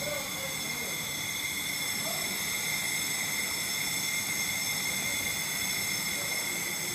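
Laser cutting machine running as its head cuts: a steady hiss with several high, even whining tones.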